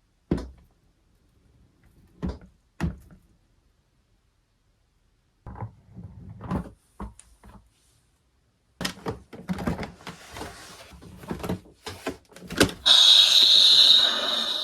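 Packaging being handled and opened: a few separate knocks, then rustling and a run of clicks and crinkles. Near the end a loud, steady electronic sound effect with several held pitches starts suddenly and slowly fades, typical of a PR box's built-in sound module.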